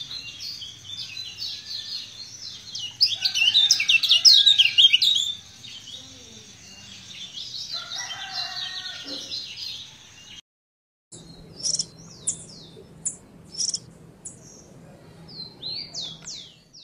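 Caged kecial kuning songbird singing a fast, jumbled, twittering song, loudest about three to five seconds in. After an abrupt break, a different bird gives a string of separate short, sharp, falling whistled notes.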